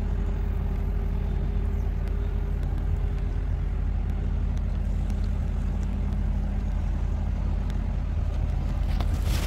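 Magni telehandler's diesel engine running steadily under load, a constant low drone with no change in pitch, as it powers the boom holding the Woodcracker tree shear.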